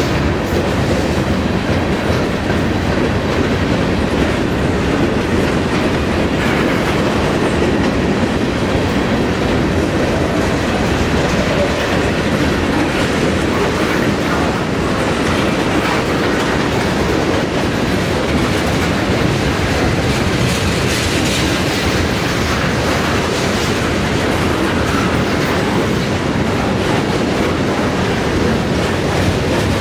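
Freight train's covered hoppers and tank cars rolling past: a steady rumble of steel wheels on rail, with wheels clicking over rail joints.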